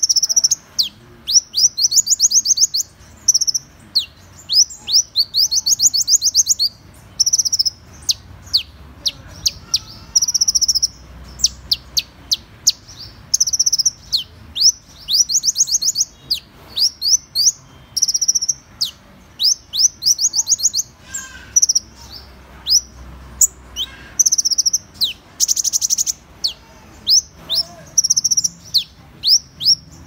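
Van Hasselt's sunbird singing: a busy run of high, thin notes, sharp downward-sweeping chips alternating with short, fast trills, repeated in quick bursts. Near the end comes one louder, harsher rattling burst.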